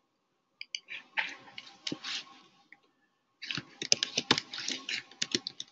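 Computer keyboard being typed on: two bursts of rapid key clicks, the first about half a second in, the second from about three and a half seconds in.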